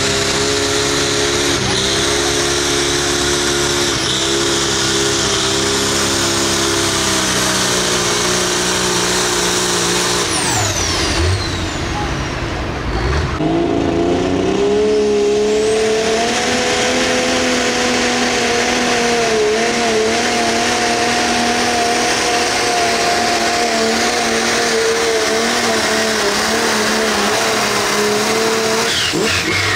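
Pulling tractors running flat out under load, dragging the weight-transfer sled. First a single-stack tractor's engine holds a steady pitch. About twelve seconds in there is a break, and then a second tractor with eight open exhaust stacks revs up and holds high revs, the pitch wavering slightly, easing off near the end.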